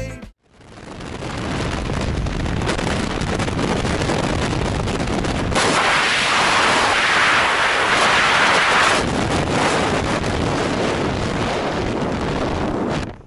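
Freefall wind rushing hard over the camera microphone during a tandem skydive. It is a steady, even roar that starts about half a second in and grows brighter and louder for a few seconds in the middle.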